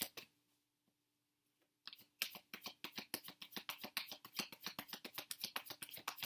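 A deck of tarot cards being shuffled: a fast, continuous run of soft card clicks and flicks, starting about two seconds in after a brief near-silent gap.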